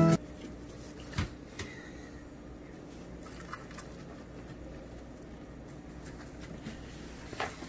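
Quiet room tone with faint handling sounds as pieces of fried chicken are picked up and set down on a plate, with a few light knocks about a second in and again near the end.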